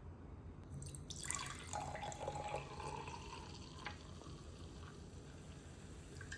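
Water running from a tap into a sink for about three seconds, then shut off.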